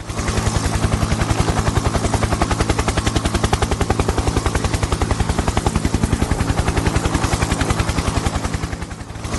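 Helicopter sound effect: steady, rapid rotor chop at about ten beats a second over a low engine hum, dipping briefly near the end.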